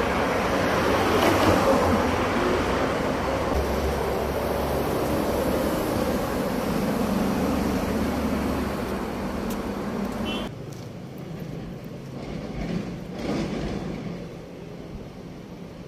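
Road traffic on a busy street: a steady rush of car tyres and engines, which drops abruptly to a quieter, distant traffic hum about ten seconds in.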